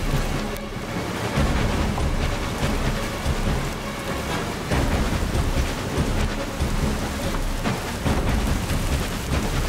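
Steady rushing noise like heavy rain, with low rumbles like distant thunder swelling a few times.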